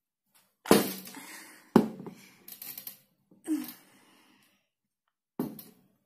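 Blender jar and blade base handled and set down on a hard table: two sharp knocks about a second apart, smaller clattering after them, and one more knock near the end.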